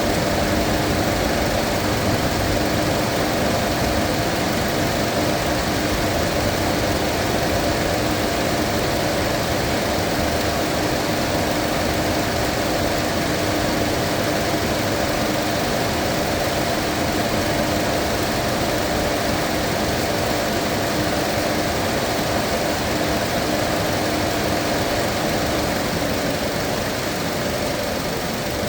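Mazda 2.5-litre engine idling steadily with a constant hum, running hot while air is bled out of its cooling system.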